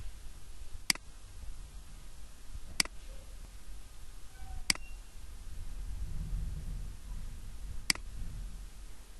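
Four sharp, isolated computer mouse button clicks, unevenly spaced, over a low steady hum.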